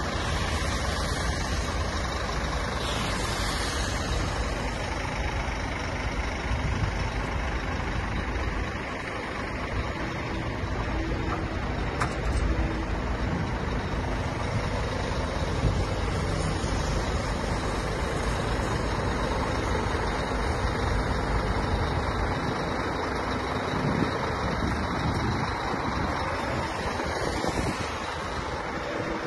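Scania P380 tow truck's diesel engine running steadily, with traffic passing on the highway.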